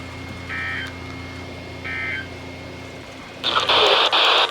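Emergency Alert System SAME data bursts from a weather radio: two short, buzzy digital warbles about a second and a half apart, the end-of-message signal that closes the alert. Near the end comes about a second of loud radio static hiss.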